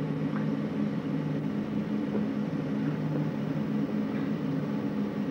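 A car's engine running, a steady low hum that holds one pitch.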